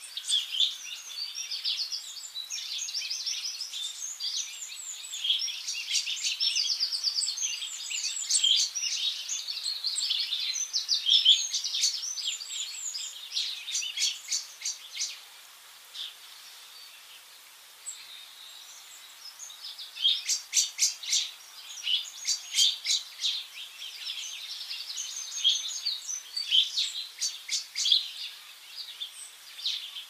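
Small songbirds chirping and twittering, with quick rattling trills mixed in. The calls thin out briefly a little past halfway, then pick up again.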